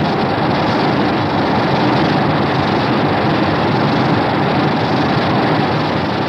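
A Showa-era Godzilla film sound effect: a loud, steady rushing rumble of noise with no clear pitch, holding even throughout.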